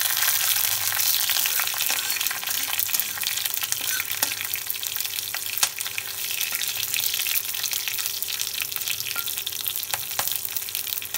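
Slit green chillies sizzling in hot mustard oil with yellow mustard seeds in a kadhai: a steady crackling hiss with occasional sharp pops.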